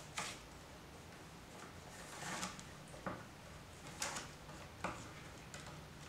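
Willow rods scraping and clicking against each other as they are woven by hand around the upright rods of a nest: about half a dozen short swishes and taps, spaced roughly a second apart.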